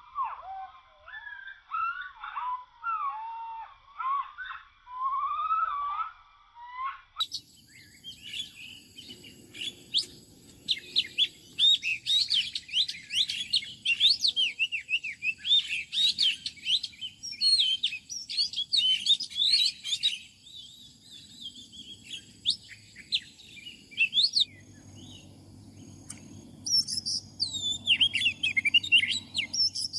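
Songbird song throughout. For about the first seven seconds it is a warbling song of up-and-down phrases. It then switches abruptly to busier, higher, rapid chirping, with a faint steady high buzz behind it.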